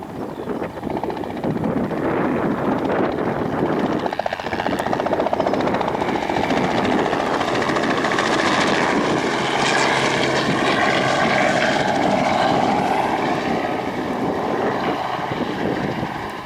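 Small crop-dusting helicopter flying low, its rotor chopping and engine whining, growing louder about a third of the way in, loudest around the middle, then easing off near the end.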